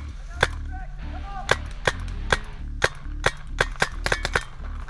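Paintball markers firing: a dozen or so sharp pops, irregularly spaced, bunching into a quick run near the end.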